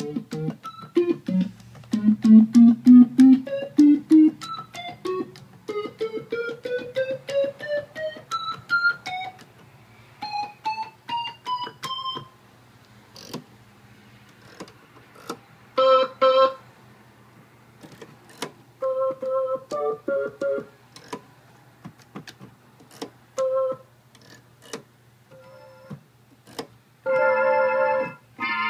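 Vox Continental V301E combo organ played: a fast run of short staccato notes climbing steadily up the keyboard, then a stretch of sparse clicks and a few short test notes, and a louder held chord near the end. A steady low hum runs underneath.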